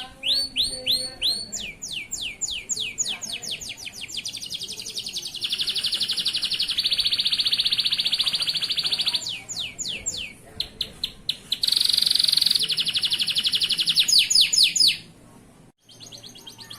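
Male canary singing a continuous song of fast repeated down-slurred notes, broken by two long rapid buzzy trills. The song stops briefly near the end.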